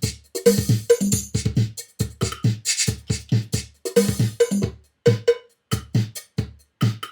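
Linn LM-1 drum machine playing a programmed beat in a steady looping drum pattern of low thumps, short knocks and hissy hits. The pattern has survived a power-off with the RAM write-protected.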